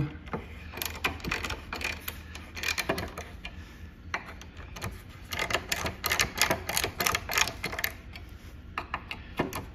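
Ratchet wrench clicking in quick runs as it is worked back and forth, turning out a chainring bolt with a 5 mm hex bit.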